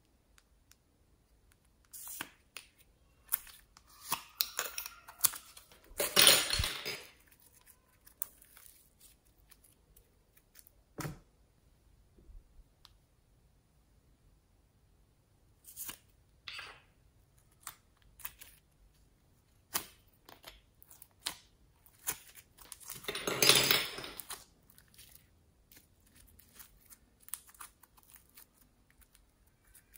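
Floam (foam-bead slime) being pulled from small plastic pots and stretched by hand, crackling and tearing, loudest in two passages about a second long. Scattered sharp clicks of the plastic pots and lids being handled come in between.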